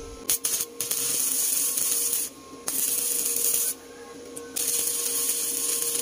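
Stick (arc) welding: a few short crackles as the electrode is struck, then three runs of steady, dense crackling hiss from the arc, each one to two seconds long with short breaks between.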